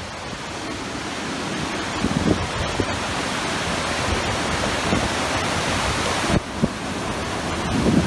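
Steady rushing roar of a dam's water release, water jetting from a discharge tunnel in the cliff and crashing into the river in clouds of spray, slowly growing louder. A few short low thumps of wind hit the microphone.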